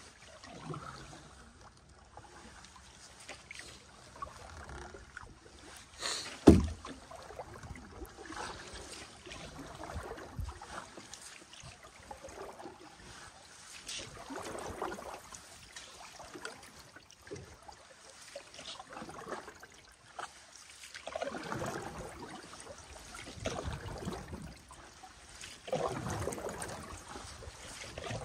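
Canoe paddling on a river: the paddle swishing and water splashing and lapping against the hull in a loose rhythm, louder in the last several seconds. A single sharp knock about six seconds in stands out as the loudest sound.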